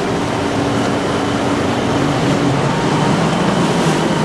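Triple Mercury Racing 450R outboards on a Hustler 39 Shotgun powerboat running steadily at low speed, over a continuous rush of water.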